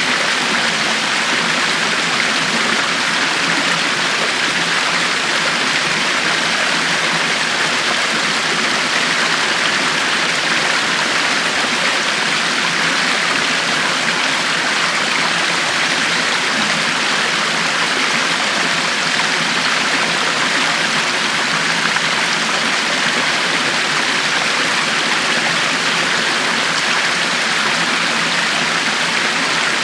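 River water flowing and splashing in a steady, even rush, strongest in the higher range, without breaks or changes.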